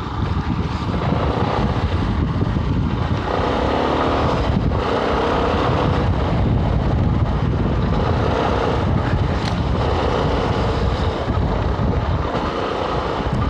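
Yamaha Ténéré 250's single-cylinder four-stroke engine running as the motorcycle rides along a wet dirt trail, its pitch rising and falling several times, with wind buffeting the camera microphone.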